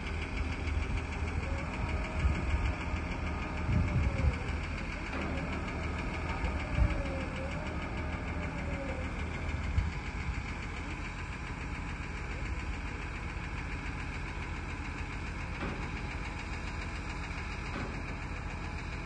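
Mobile crane's diesel engine running steadily while it holds a heavy load aloft, with a few short knocks in the first half.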